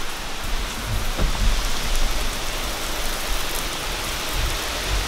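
Heavy rain falling steadily, a heavier band of hurricane rain, with an uneven low rumble underneath.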